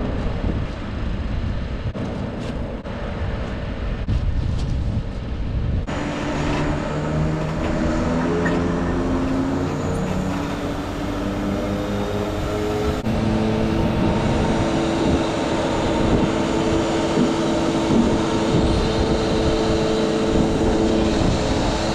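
Truck-mounted HIAB crane working while the Volvo FE truck's engine drives its hydraulics: a steady mechanical running sound, with whining tones that shift pitch as the crane moves a bulk bag.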